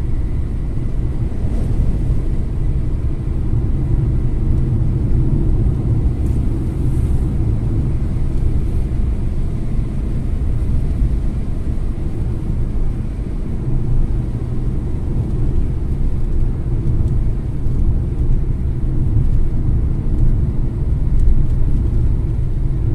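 Steady low road and engine rumble heard inside a moving car's cabin at highway speed.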